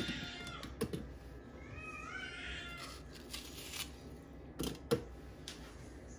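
Onion halves dropping into the Thermomix's stainless-steel bowl, each landing with a dull knock: one just under a second in and another near five seconds. About two seconds in, a high, rising and falling meow-like call is heard.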